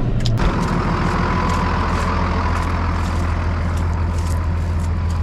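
Tractor engine running steadily, heard from the cab. About half a second in, a higher steady whine and hiss join it.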